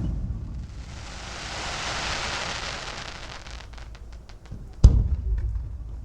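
Aerial fireworks bursting. A shell's boom rumbles away at the start, then a long crackling hiss from a glittering shell swells and fades over about three seconds. A few sharp pops follow, then another loud boom comes about five seconds in, with a rolling echo.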